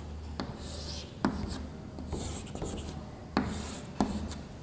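Chalk scratching on a blackboard as straight lines and arrowheads are drawn, with three sharp taps where the chalk strikes the board.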